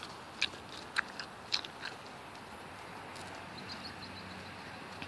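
Hoofbeats of a horse trotting on a wet dirt arena: a few sharp clicks in the first two seconds, then fainter as the horse moves away.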